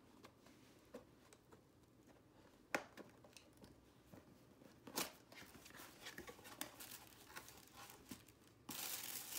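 Unboxing packaging being handled: scattered light rustling with a few sharp clicks as a small cardboard box is opened, then loud crinkling of tissue paper starting near the end.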